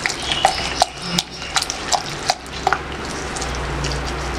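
Spatula stirring diced potatoes and peppers into beaten eggs in a glass bowl: irregular light taps against the glass with wet mixing sounds. The taps thin out about two and a half seconds in.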